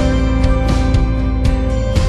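Background music: a loud instrumental track of sustained notes with percussive hits.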